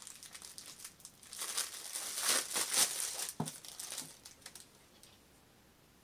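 Packaging crinkling and rustling as a folded bandana is handled and unwrapped, loudest a couple of seconds in, with a soft bump partway through, then dying away near the end.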